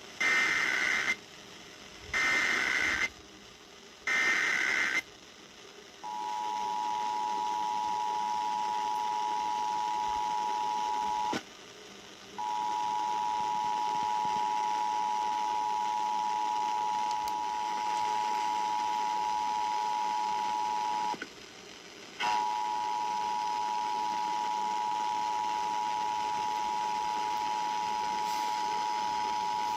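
Emergency Alert System tones: three short screeching data bursts of the SAME header, about a second each and two seconds apart. They are followed by the steady two-tone EAS attention signal, which holds for over twenty seconds, broken twice by a brief gap.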